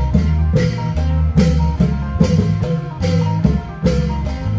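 Isan long-drum (klong yao) band playing: drums beat a steady rhythm under an amplified plucked-string melody and deep sustained bass.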